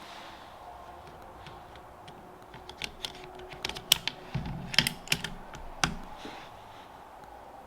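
Bolt of a CZ bolt-action .22LR rifle being worked by hand: a quick run of sharp metallic clicks and clacks between about three and six seconds in, with a short dull thud in the middle.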